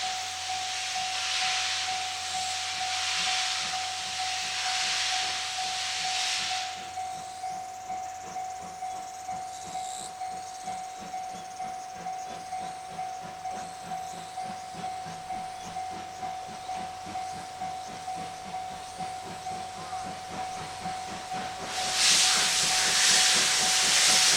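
C57 steam locomotive pulling away from a station: a loud hiss of steam from the open drain cocks for about six seconds, then regular exhaust chuffs, somewhat under two a second, as it gets under way. A second loud burst of hiss comes near the end, with a thin steady tone running underneath throughout.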